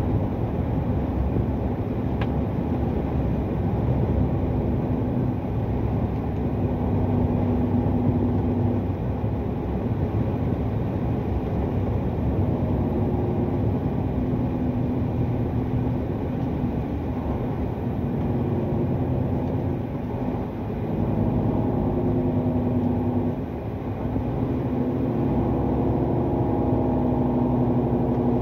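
Truck engine running and tyre and road noise heard from inside the cab while cruising on a highway, a steady low drone with engine tones that shift slightly now and then.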